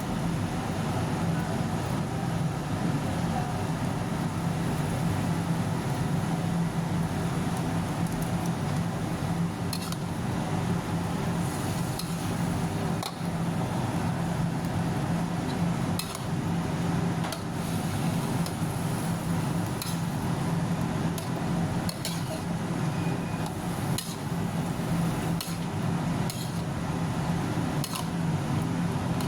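A metal spatula clinking and scraping against a pan, with scattered irregular taps, as food is stirred during cooking, over a steady low hum.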